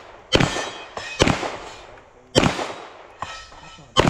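Handgun shots fired at a match stage: four sharp shots about a second apart, each trailing off in a short echo, with a fainter crack just past three seconds.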